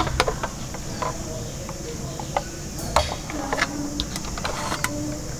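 Scattered light plastic clicks and knocks as the hinged rear hopper door and tipping bin of a plastic toy garbage truck are moved by hand.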